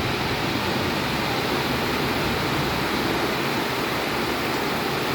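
Heavy tropical monsoon rain pouring steadily outside, heard from inside a house.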